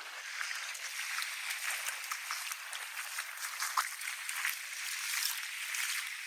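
Sea water washing and fizzing over the beach: an even, crackling hiss with its low end cut away.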